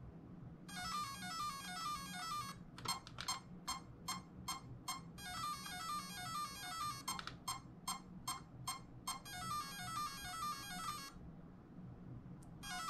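Castle Creations Mamba XLX2 ESC sounding its beep tones through the 2028 1100kv brushless motor while the throttle is being calibrated. Runs of rapid stepped beeps, each about two seconds long, alternate with strings of short single beeps, and the cycle repeats.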